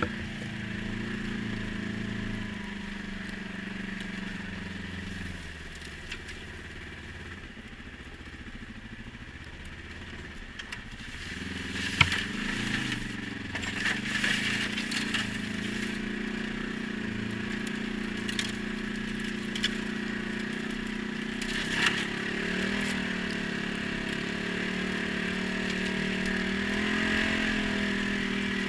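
ATV engine running under way, easing off to a lower, quieter note for several seconds, then picking up again about halfway through. Scattered sharp knocks and clatter come in after it picks up.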